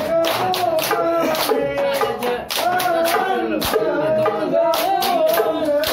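Hadrah Ishari sholawat: a group of male voices chanting a devotional melody together, over sharp, rhythmic hand-clap and percussion strokes several times a second.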